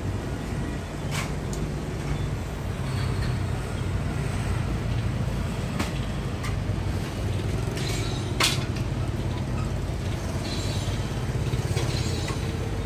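Steady low rumble of street traffic beside a food stall, with a few sharp clicks and knocks; the loudest knock comes about eight and a half seconds in.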